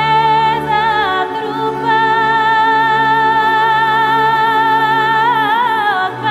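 Music: a high, wordless vocal line holds long notes with vibrato over a low sustained drone, sliding down in pitch about a second in and again near the end.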